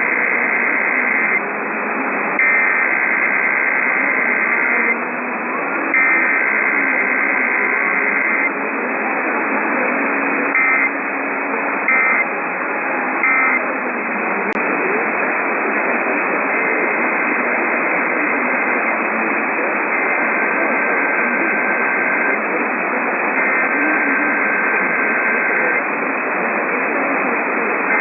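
Emergency Alert System SAME data bursts from a radio full of static hiss: three long bursts of the two-tone digital code, then three short end-of-message bursts about ten seconds in, then three more long header bursts, a little fainter.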